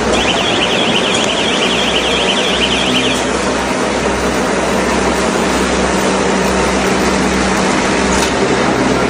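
Silage baling machine running steadily with a loud mechanical din. A high warbling alarm tone sounds over it for about the first three seconds, then stops.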